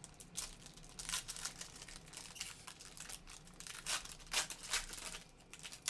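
A trading-card pack's wrapper being torn open and crinkled by hand, in quick irregular crackles and rips.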